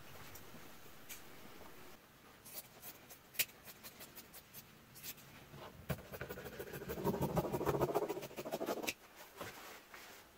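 Scissors cutting men's dress shirt fabric: scattered sharp clicks of the blades, then about three seconds of louder, dense cutting and rustling of the cloth starting about six seconds in.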